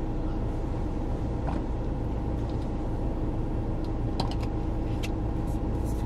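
Steady low rumble and hum inside a stationary car's cabin, with a few faint small clicks.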